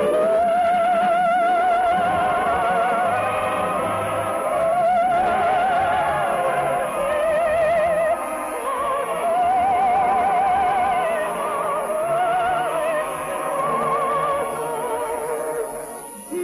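Operetta music with orchestra: a high melody with wide vibrato in long held phrases that rise and fall, over lower accompanying parts, easing off briefly just before the end.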